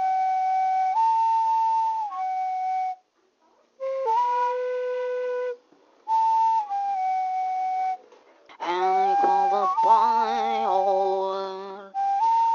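Flute music: slow, held notes in short phrases with brief silences between them, stepping between a few pitches. From about nine seconds in, a lower, fuller part with a strong vibrato comes in under the flute.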